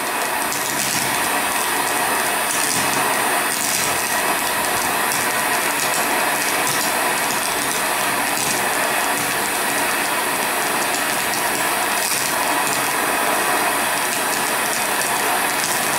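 DC TIG welding arc burning steadily at about 118 amps on a brass-to-stainless steel butt joint, an even hiss, as brass TIG filler wire is fed in by hand.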